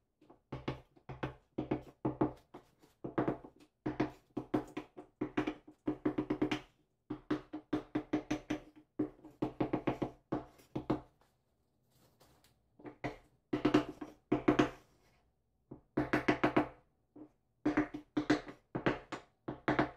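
A hammer knocking on a wooden 2x4 block held against glass mosaic tile, beating the sheet flat and bedding it into the thin-set. The knocks come in quick runs of several a second, each with the same hollow wooden ring, with short pauses between runs.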